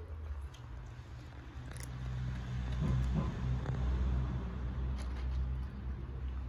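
Low engine rumble of a nearby motor vehicle, swelling in the middle and easing toward the end, with faint scattered clicks of cats crunching dry kibble.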